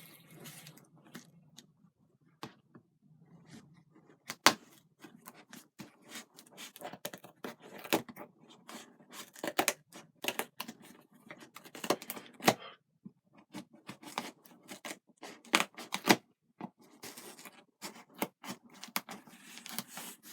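Hands working at a toy's packaging to open it: irregular clicks, snips, tearing and rustling of plastic and card, with a few sharper snaps.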